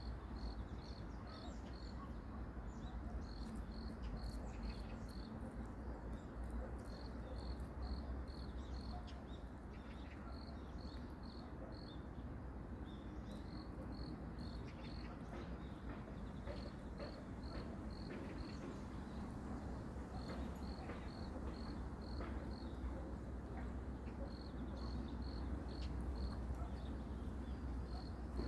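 An insect chirps in short runs of five or six evenly spaced high chirps, about three a second, with a run every two to three seconds. Under it runs a steady low rumble, with faint irregular clicks as a cat chews dried anchovies from a plate.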